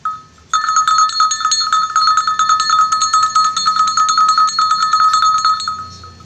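Metal cow bell with a wooden clapper, shaken by hand. One strike comes first, then about half a second later a rapid, even clanking of about seven strokes a second at a steady pitch. This runs for some five seconds and dies away near the end.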